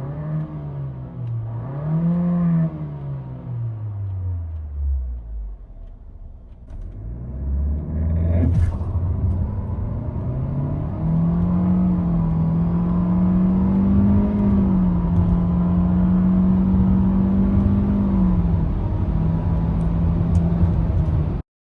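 Renault Austral's 1.3 TCe turbocharged four-cylinder petrol engine revved in a couple of blips and dropping back toward idle. After a click about eight and a half seconds in, it runs at full throttle, its pitch held nearly constant by the CVT while the car accelerates, then cuts off suddenly near the end.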